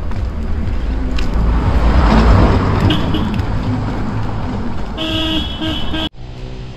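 A car passing on a road, its noise swelling and fading about two seconds in, then a car horn sounding in short toots for about a second near the end.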